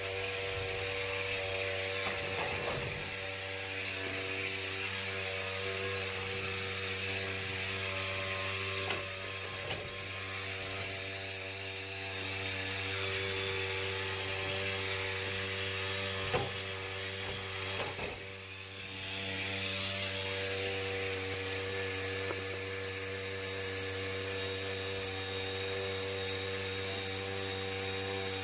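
HVAC equipment running with a steady, even hum made of several tones, with a few light knocks and clicks near the middle and about two-thirds of the way in.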